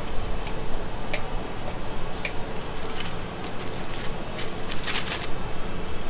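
Scattered sharp clicks and ticks over a steady background rumble, with a faint steady hum; the clicks bunch together about five seconds in.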